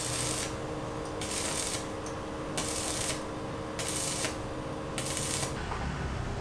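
Five rhythmic rasping strokes, about one every 1.2 seconds, like something being scraped or rubbed across a rough surface, over a steady hum that stops near the end.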